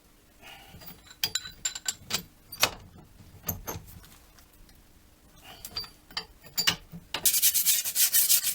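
Scattered metallic clicks and knocks of tools and brake parts being handled. About seven seconds in, a dense, rapid scratching starts: sandpaper rubbed by hand over a drum-brake part to clear built-up brake dust.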